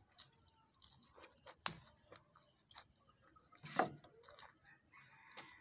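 Close-up eating sounds of someone biting and chewing grilled squid: wet mouth clicks and smacks, with a sharp click under two seconds in and a louder burst just before four seconds.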